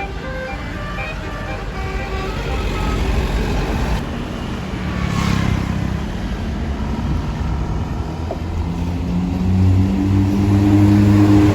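Tour bus diesel engine running close by, its low drone growing louder about two-thirds of the way through as the bus pulls off, with a brief hiss about five seconds in. Faint short musical tones are heard in the first few seconds.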